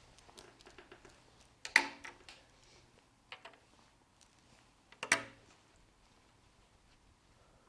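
A few sharp clicks and knocks, with two louder ringing knocks about two seconds in and about five seconds in.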